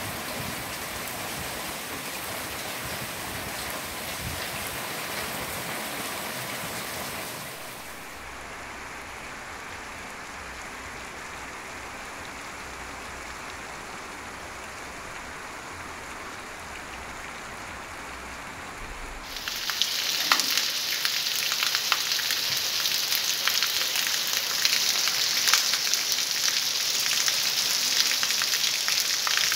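Rain falling, a steady hiss that drops quieter about seven seconds in, then turns much louder and denser about nineteen seconds in, with many close drops striking the ground.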